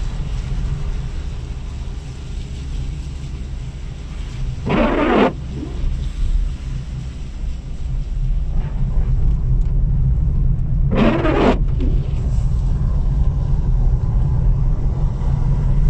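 Steady low engine and road rumble of a moving car, heard from inside the cabin, with two brief louder sounds about five and eleven seconds in.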